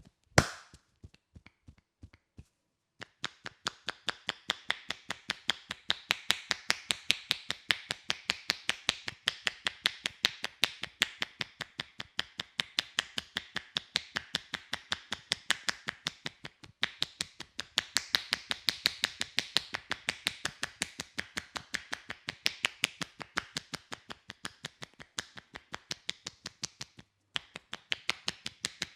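Indian head massage percussion: the masseur's hands tapping and chopping rapidly on the head. It is a steady stream of sharp taps several a second, starting in earnest about three seconds in, with brief pauses about halfway and again near the end.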